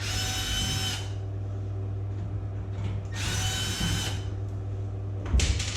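Power drill-driver unscrewing the two screws that hold a tumble dryer's top cover: two runs of about a second each, the first at the start and the second about three seconds in. A sharp knock comes near the end.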